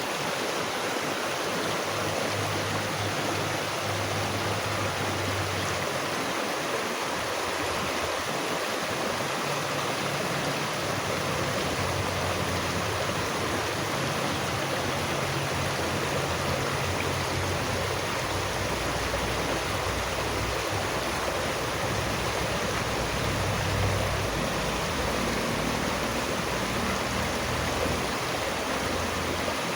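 Steady rushing of running water, like a stream flowing over rocks, with a shifting low rumble underneath.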